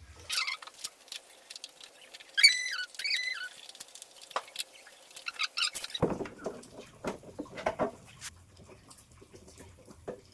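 Handling noise from working on motorcycle parts: scattered taps, clicks and rustling, with a few short high squeaks about two and a half seconds in and busier clicking and rustling from about six seconds on.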